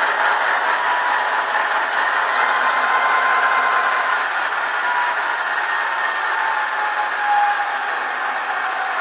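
Soundtraxx Tsunami AT-1000 sound decoder in an HO-scale Kato GE AC4400CW playing its GE diesel engine sound through two small speakers, a 1-inch fuel-tank speaker and a cell-phone speaker in the long hood. It is a steady, rattly engine sound with almost no bass, and a thin whine that slowly falls in pitch.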